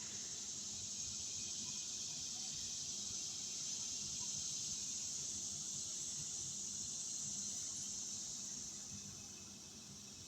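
Steady high-pitched insect chorus, a continuous shrill hiss that eases off slightly near the end.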